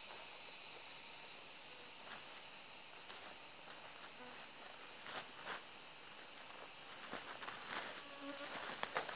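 Steady high-pitched drone of forest insects. From about halfway through, footsteps crunch on dry leaf litter, coming closer and louder toward the end.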